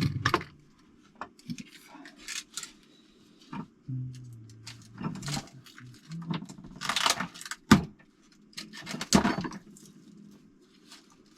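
Hands handling small items at close range: scattered rustles, light clicks and jingling. There is a sharp knock a little before eight seconds in, and louder rustling scrapes around seven and nine seconds in.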